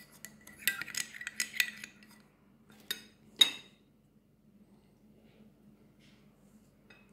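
Metal serving spoon clinking against a salad bowl: a quick run of light clinks in the first two seconds, then two sharper clinks, the louder about three and a half seconds in, followed by one more soft click near the end.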